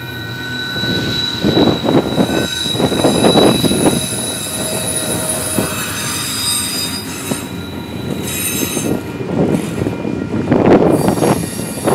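Freight train's autorack cars rolling past, their wheels squealing on the rails in several steady high-pitched tones. Surges of rumbling wheel noise come and go, loudest about three seconds in and again near the end.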